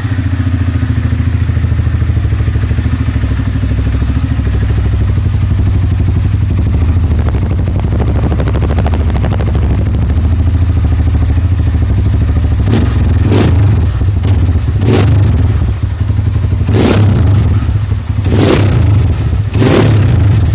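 Motorcycle engine running through a newly fitted aftermarket exhaust on its first start after the swap: a steady low idle, with six short, sharp bursts over it in the second half.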